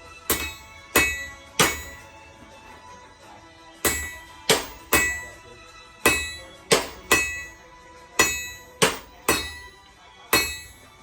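Hammer blows on metal, each strike followed by a clear ringing tone, as in forging on an anvil. There are about fourteen strikes in uneven runs, with a pause of a couple of seconds early on.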